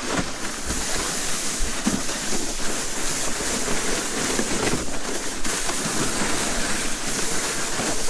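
Sled sliding down a snowy slope: a steady scraping rush of snow under the runners, with wind on the microphone.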